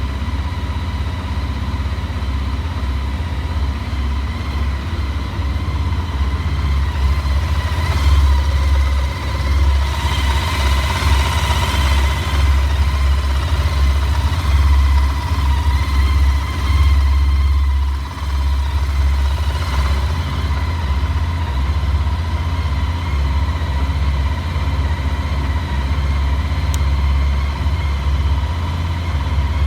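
Honda ST1300 motorcycle's V4 engine running steadily at idle, recorded to capture a knocking noise that the owner is chasing.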